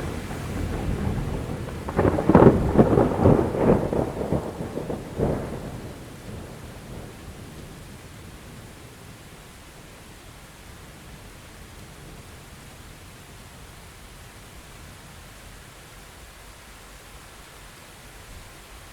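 Thunderstorm: a rumble builds, then a loud thunder crack about two seconds in, with crackling, rumbling peals for a couple of seconds and one more crack around five seconds in. The thunder then dies away, leaving a steady hiss of rain.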